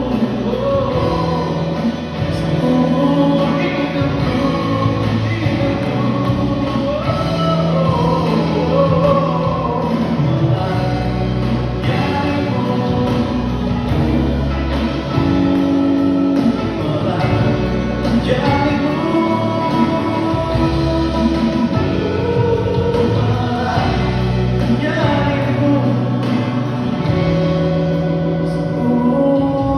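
A live band and singers performing a worship song, with sustained bass notes under the sung melody.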